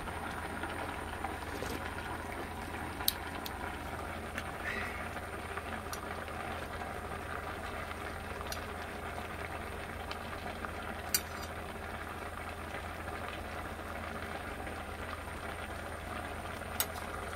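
Kimchi jjigae (kimchi stew) boiling in a stainless steel pot, a steady bubbling. A few sharp clicks come through it, about three seconds in, around eleven seconds and near the end.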